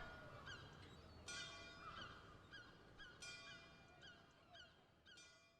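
Celtic instrumental music fading out: short high notes with little pitch flicks repeat a few times a second, over a sharper struck chord about every two seconds, growing steadily fainter.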